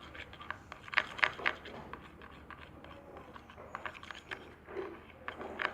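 Stirrer tapping and scraping against a bowl while mixing liquid glue and food colouring, with irregular sharp clicks, several close together about a second in.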